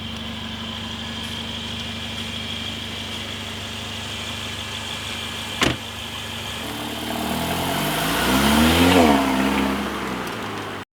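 Car engine running steadily, with a single sharp click about halfway through. Near the end a louder engine sound swells, rising and falling in pitch, then cuts off.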